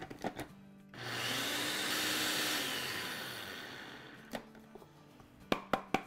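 Ninja Auto-iQ blender with a small grinding cup grinding sugar into powdered sugar: the motor starts suddenly about a second in, runs for about two seconds and winds down. Plastic clicks as the cup is set onto the base at the start and twisted off near the end.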